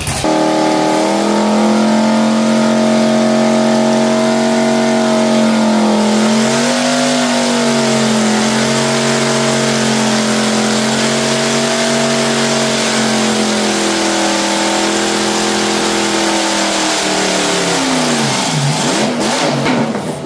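A 450 hp V8 engine running hard on a home-built brake dyno. Its note holds fairly steady for most of the pull, then sags slightly as the axle brakes load it and pull the rpm down. Near the end the pitch drops sharply, then climbs briefly again before the sound cuts off.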